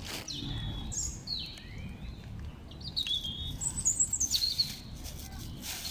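Small birds chirping: several short, high calls, some sliding down in pitch, with scattered clicks and rustling.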